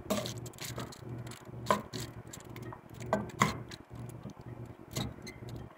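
A spoon stirring chunks of chicken and vegetables in a metal pot, knocking and scraping irregularly against the pot's sides, over a low steady hum.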